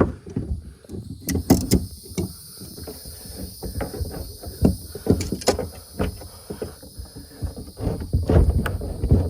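Irregular knocks, clicks and rubbing of hands straining to work a fuel hose onto a tank fitting inside a boat hull.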